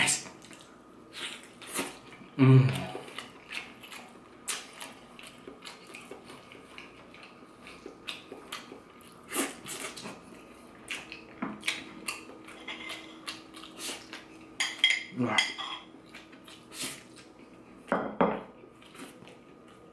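Close-up eating sounds: chewing and lip-smacking on chicken, with many small clicks and clinks, and a few brief murmurs.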